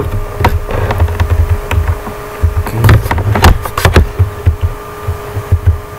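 Irregular sharp clicks and knocks, several in quick succession near the middle, over a faint steady hum.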